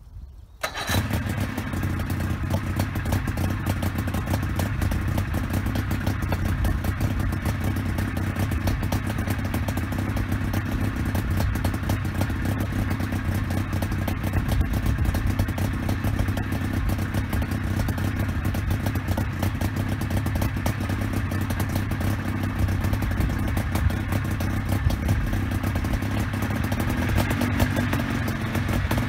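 Homemade coaxial helicopter's roughly 60-horsepower engine, fitted with tuned exhausts, running steadily. It comes in abruptly about a second in, and its pitch edges up near the end.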